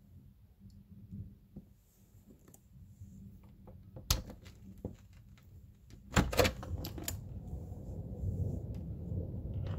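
A few light clicks and taps, one sharp click about four seconds in. About six seconds in, thunder starts with a cluster of sharp cracks and turns into a low, rolling rumble that keeps going.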